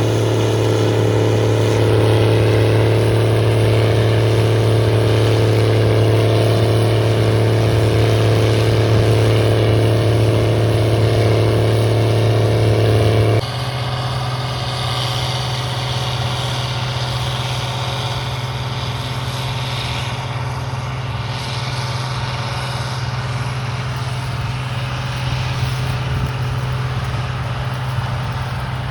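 Harvest machinery engine running steadily with a constant drone. About halfway through it cuts abruptly to a different, somewhat quieter engine drone a little higher in pitch.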